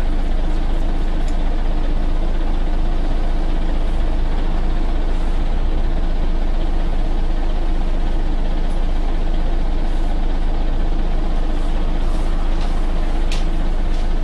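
Scania OmniCity articulated bus heard from inside the passenger saloon: its diesel engine running with a steady low drone, and a few faint rattles and ticks from the body in the second half.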